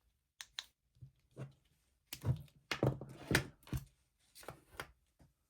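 Handling noises: a string of clicks and knocks as small parts are moved and handled, loudest a little past the middle.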